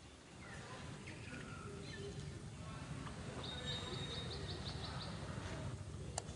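High-pitched animal chirps over a low outdoor rumble: a few short falling calls early, then a quick run of about eight rapid chirps around the middle.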